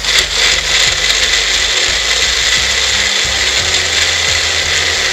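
Magic Bullet personal blender running loudly and steadily, blending a thick sauce of nuts, herbs and cream thinned with pasta water.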